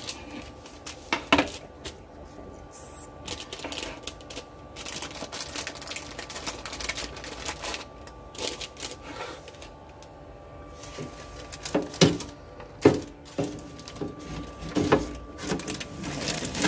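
Scattered clicks and knocks of a baking tray and oven door being handled as a tray of sausage bread rolls goes into the oven, with two sharp knocks about three-quarters of the way through. A faint steady hum runs underneath from the preheated oven.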